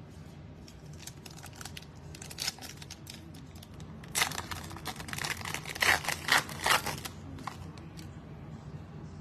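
Foil wrapper of a 2022 Illusions trading-card pack being torn open and crinkled by hand. A few scattered crackles come first, then a dense, louder stretch of tearing and crinkling from about four to seven seconds in.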